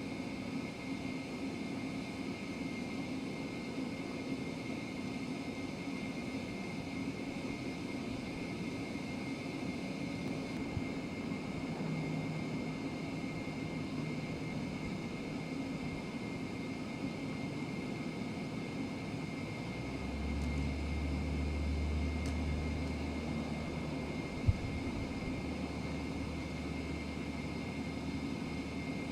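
Steady jet aircraft engine noise with a constant high whine over a broad hum. A deeper rumble swells about two-thirds of the way through, and there is a single sharp click near the end.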